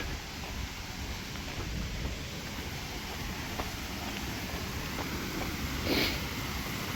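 Waterfall pouring steadily, an even rush of falling water, with a few faint clicks and a short rustle about six seconds in.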